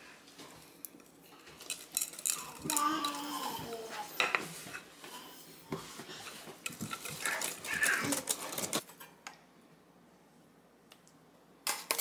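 Kitchen clatter: a utensil scraping and clinking against a mixing bowl while cake batter is poured out, in scattered knocks and scrapes that stop about nine seconds in.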